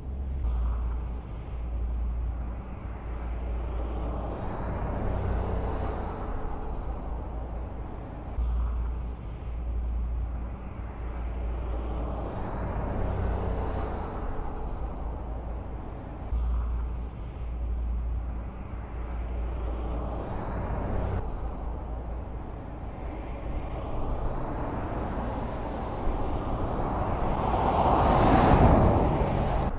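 Road and engine noise of a moving car heard from inside it: a steady low rumble with rushes of noise that swell and fade every several seconds, the loudest near the end.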